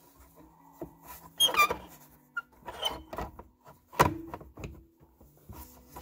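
Gloved hands working a car's plastic interior trim panel and seat belt guide. There are squeaky rubbing sounds about a second and a half in and near three seconds, and a sharp plastic knock about four seconds in.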